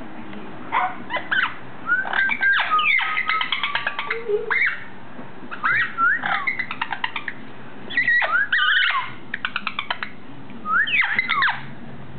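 Orange-winged amazon parrot making noises: short whistled notes that slide up and down, mixed with fast runs of clicks, in several bursts with pauses between.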